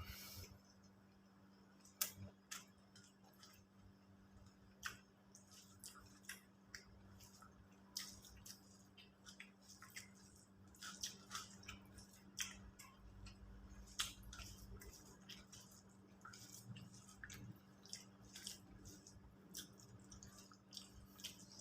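Faint eating sounds: irregular small clicks and wet smacks of food being chewed and handled, over a steady low hum.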